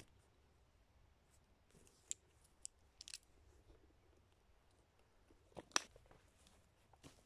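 Wool clothing being handled and put on: faint rustling with a handful of small, sharp clicks, the sharpest about six seconds in.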